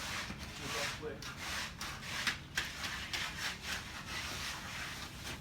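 Repeated rasping scrapes of hand tools working wet concrete, about two or three strokes a second.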